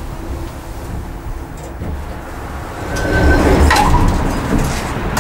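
LUTZ passenger elevator car travelling with a low, steady hum, then arriving. About three seconds in there is a short beep and the car doors slide open with a louder rush of noise.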